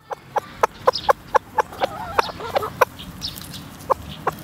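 Chickens clucking in a quick run of short notes, about three a second, with a brief wavering call about two seconds in, as they peck at corn offered by hand.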